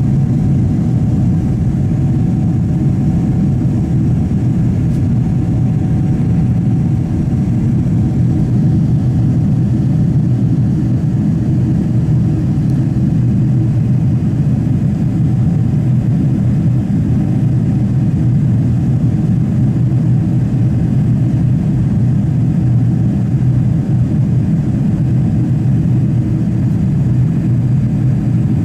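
Steady roar inside the cabin of a Boeing 777-300 under engine power, heard from a window seat, with a faint steady tone above it.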